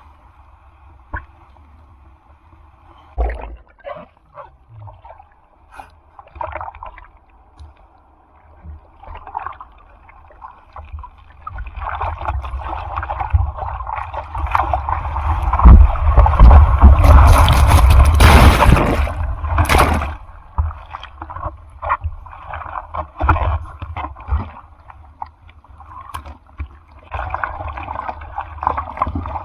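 Ocean surf close to the microphone: scattered small splashes and sloshes, then a loud rush of a breaking wave building about halfway through and lasting around four seconds before it fades. Typhoon-driven surf.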